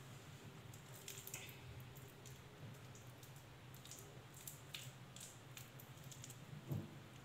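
Very quiet room with a low steady hum, faint small clicks and soft squishy handling noises, and one soft thump near the end.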